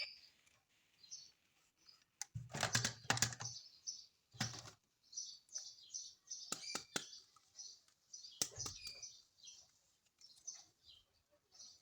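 Plastic toys and packaging being handled: a few sharp clicks and knocks among quick, high crinkling and ticking sounds.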